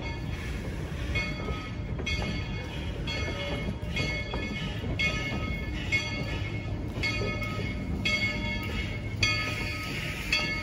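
Train bell ringing about once a second over the low rumble of a moving train.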